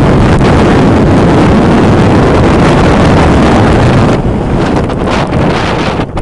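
Strong gusty wind buffeting the microphone: a loud, dense, low rumble that eases slightly about four seconds in.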